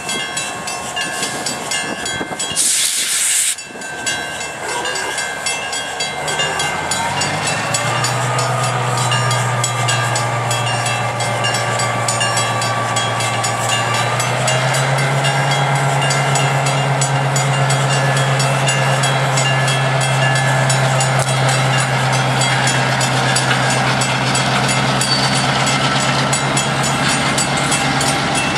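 EMD GP10 diesel switcher locomotive, with a 16-cylinder EMD 567 engine, starting a train of boxcars. A short hiss of air comes about three seconds in. Then the engine's low drone rises in steps as it is notched up, near eight and again near fifteen seconds in, while the cars roll slowly over the rails.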